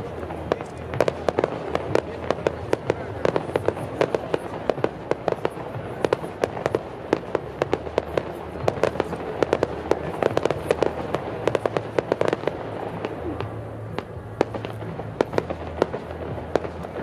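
Fireworks going off in a rapid, irregular stream of sharp bangs and crackles, thinning out near the end, over a low steady hum.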